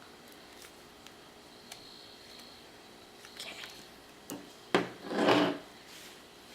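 Light handling noises: a few soft taps, then a sharp click about three quarters of the way in, followed at once by a brief rasping rustle.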